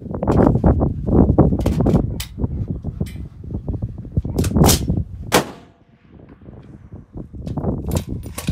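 Several sharp rifle shots, the loudest about four and a half and five and a half seconds in, over a steady low rumble.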